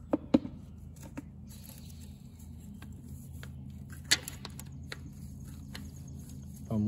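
Small metal clicks, taps and scraping as a hand tool works at the brake band springs and linkage inside an Allis-Chalmers 175 tractor's rear brake drum: two sharp clicks just after the start and a louder one about four seconds in, over a steady low hum.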